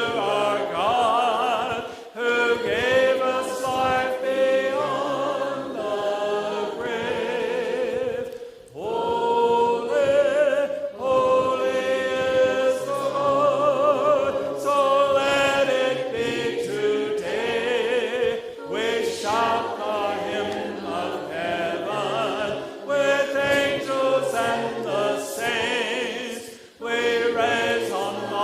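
A choir singing a slow hymn, sustained notes with vibrato in phrases of a few seconds, with short breaks between phrases.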